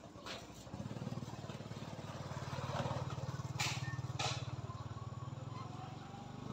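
A small engine running with a low, steady, fast-pulsing rumble that starts just under a second in, with two sharp clicks a little past halfway.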